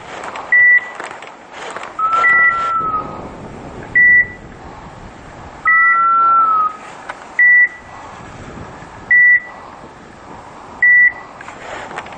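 Electronic beeper collars on hunting setters: a short high beep repeating about every second and a half, seven times, and twice a longer, lower tone that bends slightly in pitch, over a background of rustling.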